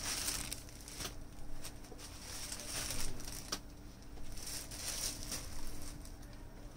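Saree fabric rustling as folded sarees are picked up, shifted and laid down by hand, in several separate swishes.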